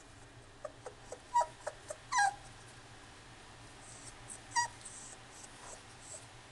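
Miniature dachshund puppy giving a quick string of short, high yips and whimpers, then one more a couple of seconds later.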